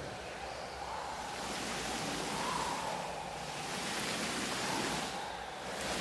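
Steady rushing noise that swells and eases in slow waves, with a faint wavering tone underneath.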